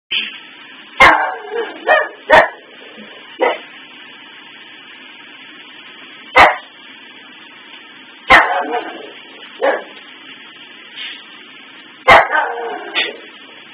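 Pug barking in single sharp barks, about nine in all at uneven gaps of one to three seconds, a few of them drawn out for a moment. She is barking at Christmas tree lights that keep blinking on and off.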